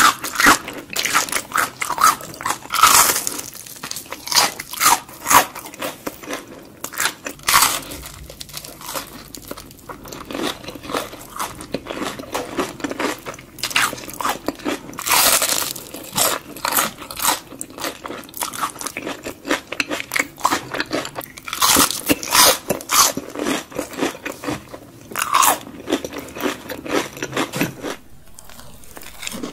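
Crisp crunching bites into breaded, deep-fried onion rings, in repeated clusters of sharp crunches with quieter chewing between, dying down near the end.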